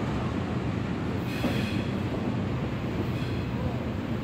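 Double-stack intermodal freight cars rolling past with a steady rumble of wheels on rail. A brief high-pitched wheel squeal comes about a second in, and a fainter one near three seconds.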